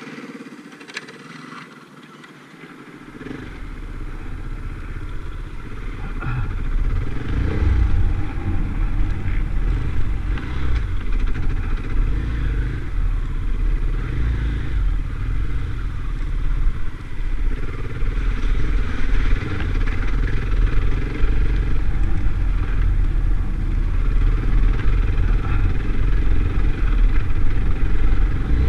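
KTM trail motorcycle being ridden along a rough, muddy green lane, its engine running under way. The sound grows louder about three seconds in as the bike gets moving, then carries on as a steady heavy low rumble.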